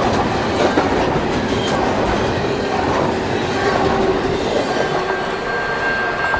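Double-stack intermodal container train rolling past, its steel wheels running on the rails with a steady rumble and scattered clicks, the last well car going by near the end.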